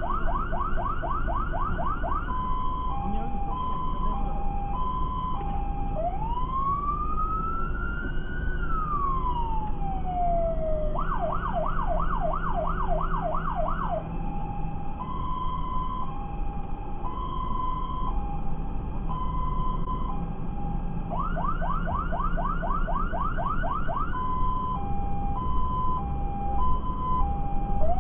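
Fire engine's electronic siren heard from inside the cab, switching between patterns: short bursts of fast yelp sweeps, a two-tone hi-lo alternation, and one slow wail that rises and then falls. The vehicle's engine and road noise rumble underneath.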